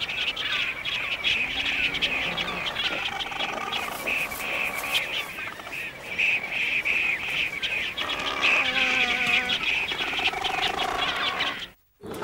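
Cormorant breeding colony calling: a dense, continuous chatter of rapid high chirps, with a few lower wavering calls among them. The calls stop abruptly just before the end.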